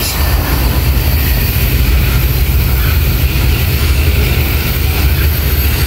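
Freight train boxcars rolling slowly past, a steady low rumble of steel wheels on the rails.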